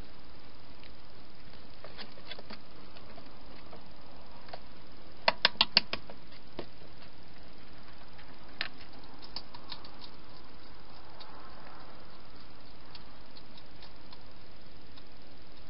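Wild hedgehogs feeding at a plastic feeding box, making scattered small clicks and taps, with a quick run of four loud clicks about five seconds in, over a steady hiss.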